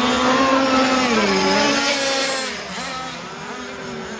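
Several petrol RC racing boats' two-stroke engines screaming at high revs together. Their pitches dip about a second in, and the sound fades about halfway through as the boats run away down the lake.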